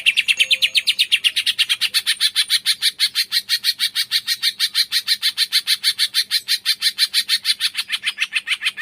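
A cungkok bird calling, a fast unbroken run of sharp, high notes repeated at about eight a second.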